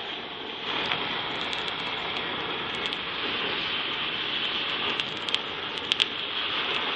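Handheld long-wand gas torch running, its flame giving a steady hiss that grows a little louder about a second in. Scattered sharp crackles and pops are strongest a little after five and at six seconds in, as the flame burns a wasp nest.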